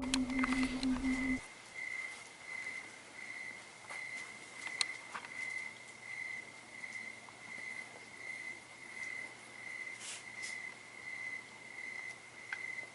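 A cricket chirping steadily at night, an even, high-pitched pulse repeating about one and a half times a second. A low hum runs under it for the first second or so, and there are a few faint clicks.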